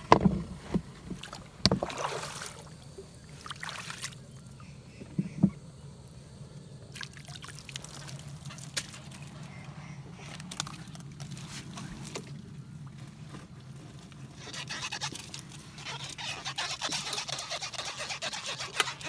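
Water splashing and sharp knocks against the side of a small wooden boat, with a denser spell of splashing over the last few seconds.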